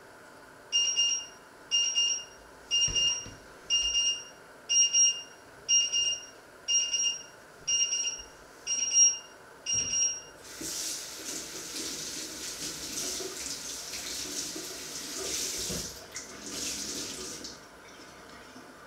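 An electronic alarm beeps about once a second, ten times, a high two-tone beep. Then water runs from a tap into the sink for about seven seconds and stops.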